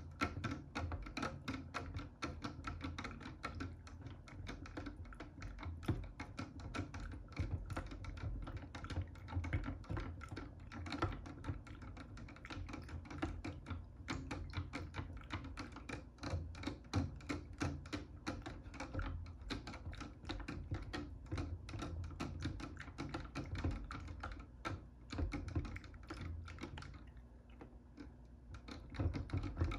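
Dense, rapid clicking and tapping of hands handling plastic toy packaging and small toys, easing off briefly near the end.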